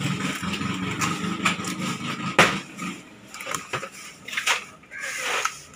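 Sharp clicks and knocks of raw crab shells being handled on a wooden chopping block and cut with kitchen scissors, the loudest knock about halfway through. A low motor hum runs under the first half and then fades.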